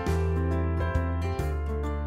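Background music: a melody over held bass notes.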